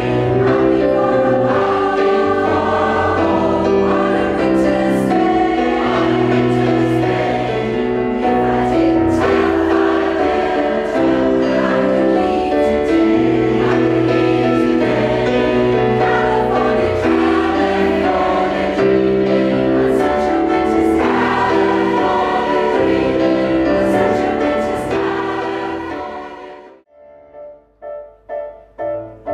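Mixed-voice community choir singing in harmony. Near the end the singing fades out and a keyboard begins evenly repeated chords, growing louder.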